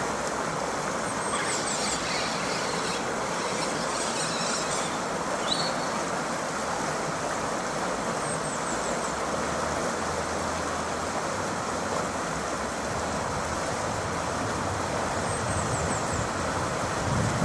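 Steady rush of flowing river water, with faint high-pitched chirps a few times.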